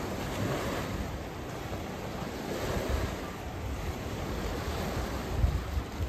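Small lake waves washing onto the shore, with wind buffeting the microphone in gusts, the strongest gust about five seconds in.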